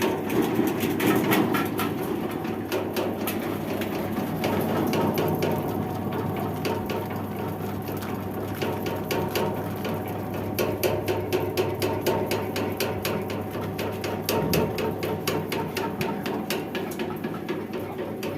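Flour sifting machine running: a steady motor hum under a fast, even rattling from the shaking sieve.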